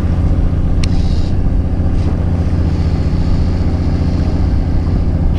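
Fishing boat's engine running steadily, a low even drone, with a brief click about a second in.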